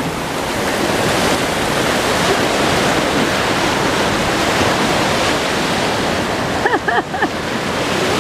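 Ocean surf washing steadily, with wind on the microphone. About seven seconds in comes a quick run of four short, high, arching calls.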